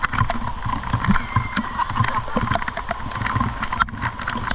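Motor scooter on the move: low engine hum and road noise with wind on the microphone, a faint steady whine, and many small sharp clicks scattered throughout.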